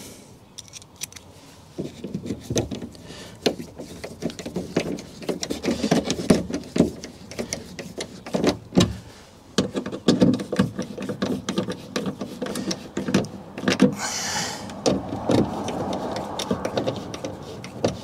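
Irregular clicks, taps and scraping of a nut driver and screws being handled and fitted against a speaker adapter ring in a car door, the screws being started into place before tightening.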